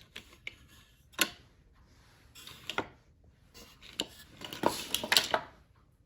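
Marbles rolling down a wooden zigzag marble run, clacking against the wood. One sharp click comes about a second in, then short clusters of clicks and rattling, densest in the second half.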